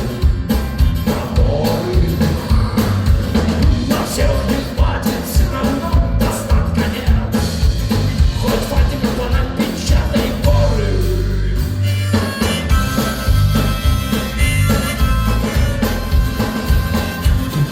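Rock band playing live, with drums, bass and guitars under a sung vocal line; about twelve seconds in the singing stops and the band plays on instrumentally.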